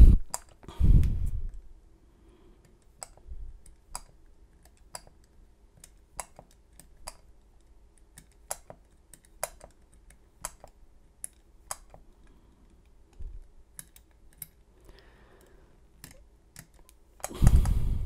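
Combination wheels of a Vault Locks four-wheel combination lock clicking as they are thumbed forward one number at a time, with the shackle lifted between numbers to test each code: short, sharp clicks at about one or two a second. A louder handling bump comes about a second in and again near the end.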